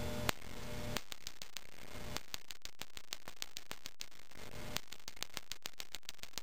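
Electronic gas grill igniter sparking over and over against a metal cookie tin: a fast train of sharp, faint clicks, several a second, starting about a second in. It is trying to restrike a 70 W high-pressure sodium lamp while it is still hot, and the lamp does not light, probably because it has not cooled enough.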